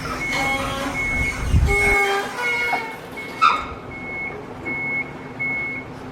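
An electronic warning beeper sounding a steady, evenly repeated high beep, about four beeps every three seconds. There is a short sharp clank about three and a half seconds in.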